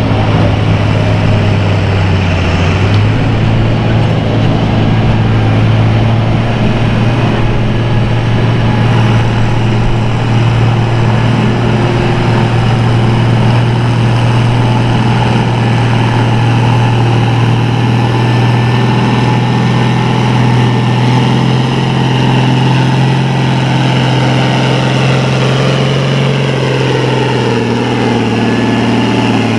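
Farm tractor engine running loudly and steadily. Its pitch steps up about three seconds in and rises a little again near the end.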